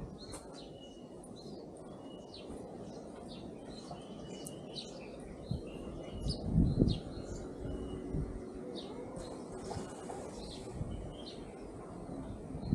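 Small birds chirping in short, scattered calls over a steady low background hum, with a brief low rumble about six seconds in.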